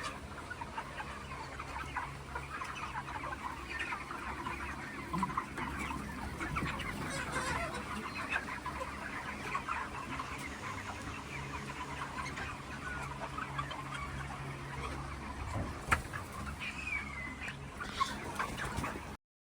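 A flock of chickens in a poultry house, many birds clucking and calling at once over a steady low hum. A sharp click comes near the end, then the sound cuts off abruptly.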